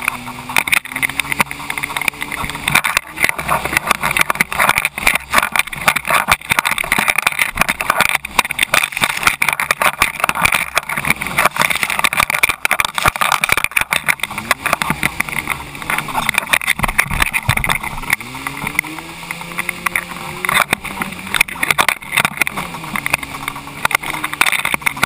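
Jet ski engine running at speed, its pitch rising and falling with the throttle, under a constant rush of splashing spray and chop hitting the hull.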